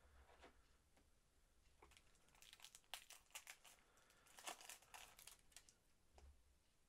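A foil trading-card packet crinkling and crackling as it is torn open by hand. The crackling is faint and comes in a cluster of sharp crinkles from about two and a half seconds in to about five and a half seconds.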